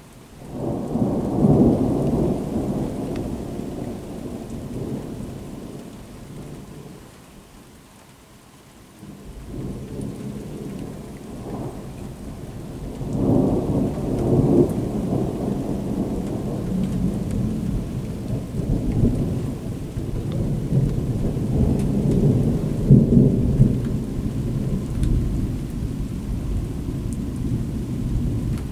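Thunder rumbling: a peal breaks about half a second in and dies away over several seconds, then a second long, deep rumble builds from about ten seconds in and rolls on to the end.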